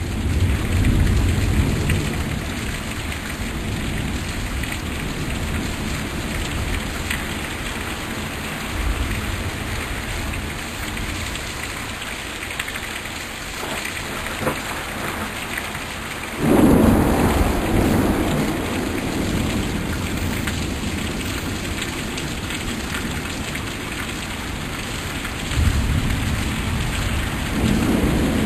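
Heavy rain pouring steadily in a summer thunderstorm. Thunder rumbles low at the start, a sudden loud thunderclap breaks a little past halfway and rumbles away over a few seconds, and another rumble comes near the end.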